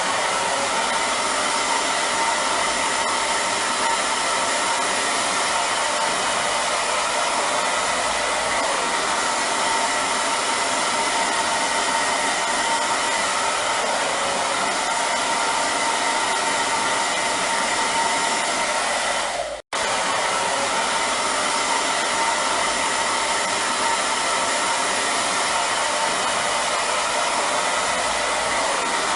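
Hair dryer running steadily, an even blowing rush with a faint steady whine in it. It cuts out for a split second about two-thirds of the way through and comes straight back.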